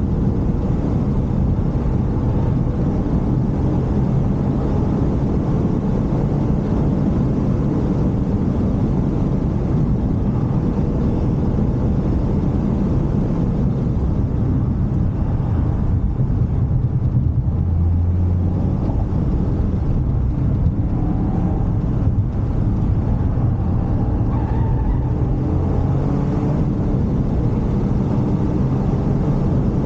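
Toyota GR Yaris with its turbocharged three-cylinder engine driving, a steady low rumble of engine and road noise with no sudden events.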